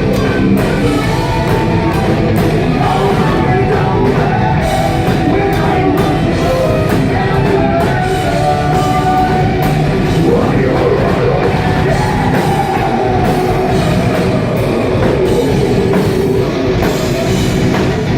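Live heavy metal band playing loud and distorted, with drum kit, guitars and singing. It is recorded on a phone microphone that is overloaded by the volume.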